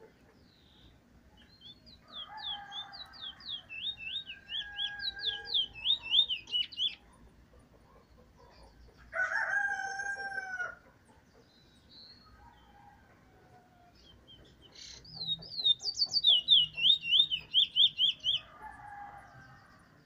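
A caged bullfinch singing two runs of quick, repeated high notes, each a few seconds long, the notes coming faster toward the end of each run. Between the runs, about halfway through, a rooster crows once in the background.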